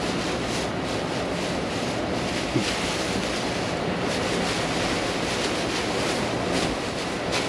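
Steady hiss of heavy tropical-storm rain with wind buffeting the microphone. A single short knock about two and a half seconds in.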